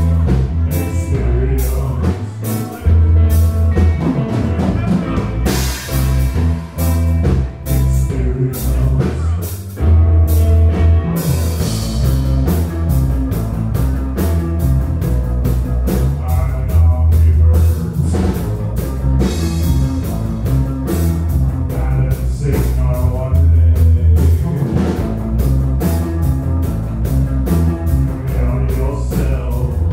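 Live rock band playing: electric guitar, electric bass and a drum kit with a steady beat and heavy bass.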